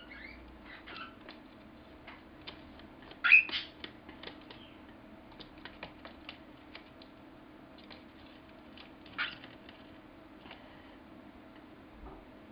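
A baby cockatiel's claws and beak scrabbling and tapping on a cardboard box as it climbs, in scattered light clicks, with a louder scuffle about three seconds in and another near nine seconds.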